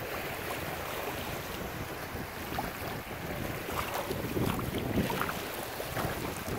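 Wind buffeting the microphone over the sloshing of water as someone wades through shallow water, with a few louder splashes about four to five seconds in.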